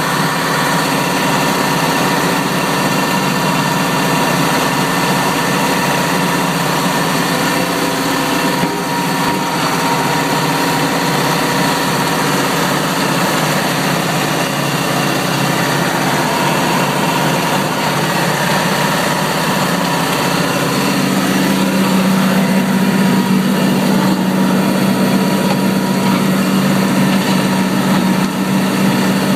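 Tractor engine running steadily while driving a rear-mounted, PTO-driven flail mower that is chopping pruned branches. About twenty seconds in, a stronger low hum sets in and the sound gets a little louder.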